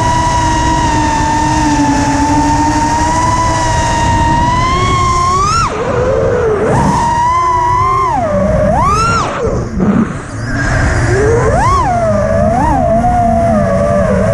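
FPV freestyle quadcopter's T-Motor Blackbird V2 1950kv brushless motors with T-Motor 5143 props, whining. The pitch holds steady while cruising for about five seconds, then swoops up and down again and again as the throttle is punched and cut, with a brief drop about ten seconds in.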